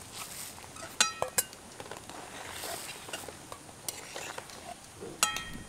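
Hands rubbing flour together with oil and salt in a bowl, working the oil into the flour for paratha dough. A soft rustling is broken by sharp metallic clinks that ring briefly: three close together about a second in and one near the end.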